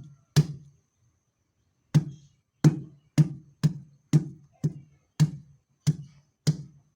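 Roasted ginger root being smashed flat with repeated heavy blows of a blunt tool on a hard surface, each blow a dull knock. After one blow there is a pause of over a second, then the blows come about twice a second, pounding the ginger until it is soft.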